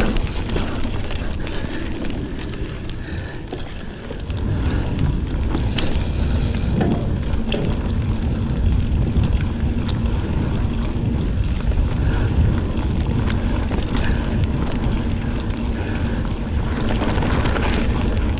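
Wind rumbling on the microphone over a mountain bike riding a dirt trail: tyre and trail noise with scattered sharp clicks and rattles from the bike.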